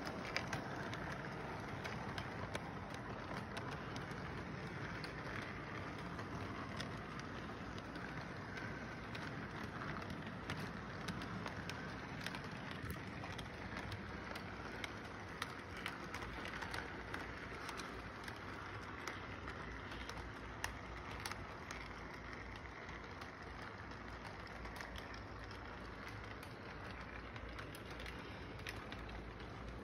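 Electric model train running on its track: the steady whir of the locomotive's motor, with many small clicks from the wheels over the rail joints.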